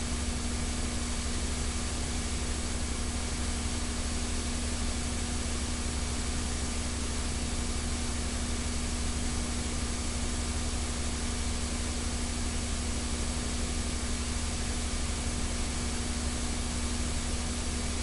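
Steady hiss with a constant electrical hum underneath, unchanging throughout and with no speech: the noise floor of an old recording carrying no programme sound.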